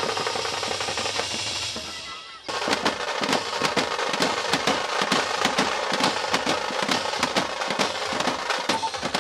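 A drum troupe beating large steel-shelled drums with sticks in a fast, dense volley of strokes. For the first two seconds there is band music with sustained pitched notes, which breaks off before the drumming comes in.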